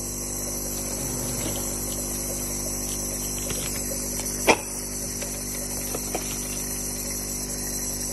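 Nebulizer air compressor running with a steady electric hum. A single sharp click comes about four and a half seconds in, and a fainter one a second and a half later.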